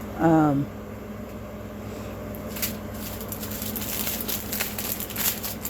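Small plastic packets of diamond-painting drills being handled: faint scattered clicks and crinkles over a steady low hum. A short voiced 'mm' comes just after the start.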